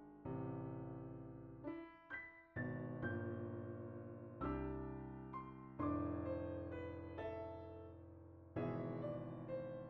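Slow solo keyboard music in an electric-piano tone: chords struck every second or so, some closer together, each left to ring and fade.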